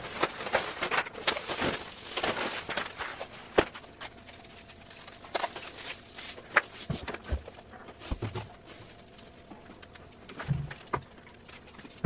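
Foil-faced insulation spacer strips being handled and fitted to a water heater tank: irregular rustling and crinkling with scattered sharp clicks and taps, busiest in the first few seconds. A faint steady hum runs underneath.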